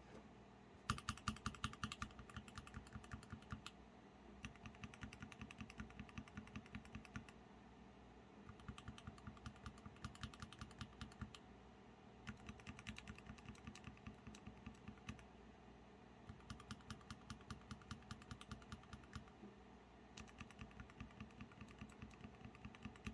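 Two NK Dry Series Yellow mechanical keyboard switches with keycaps, freshly lubed (one with Krytox 205g0, the other with a Super Lube oil-and-grease mix), pressed repeatedly. The clicks are faint and rapid, coming in runs of a few seconds each with short pauses between.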